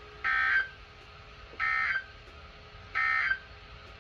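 Three short bursts of NOAA Weather Radio SAME digital data tones, each about a third of a second long and about 1.3 seconds apart. They are the end-of-message code that closes the required weekly test broadcast.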